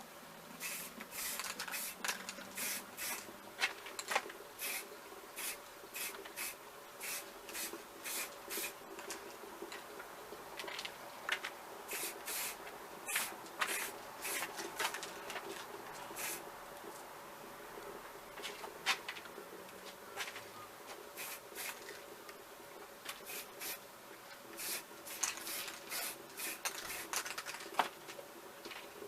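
Aerosol spray-paint can hissing in short, quick puffs, a few every second with brief gaps, as undercoat goes onto an old metal fishing reel.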